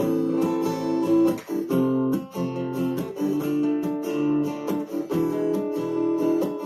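Instrumental break of a song: guitar strummed in steady chords.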